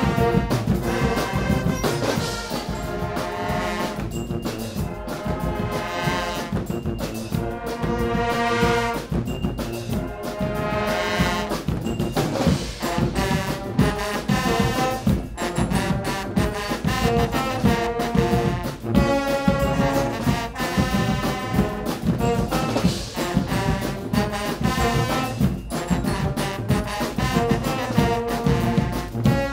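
Guggenmusik band playing: massed brass (trumpets, trombones and sousaphones) over bass drums and cymbals, loud and rhythmic.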